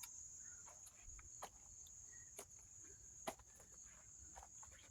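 Near silence outdoors: a faint, steady high-pitched insect drone, with a few light clicks scattered through it, the loudest about three seconds in.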